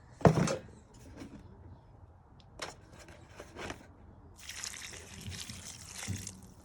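Water poured into a bowl of dry pony feed, running in a hiss for about two seconds in the second half, after a knock near the start and a few small clicks.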